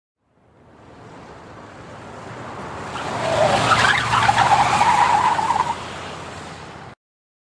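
Car tyres skidding: a car's noise builds up, then the tyres squeal loudly for about two and a half seconds, the squeal rising at first and then holding, before the sound cuts off abruptly shortly before the end.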